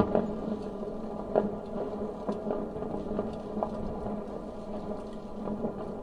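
Fireworks going off, heard muffled through a ventilation duct: irregular bangs and pops, the loudest right at the start, over a steady low hum.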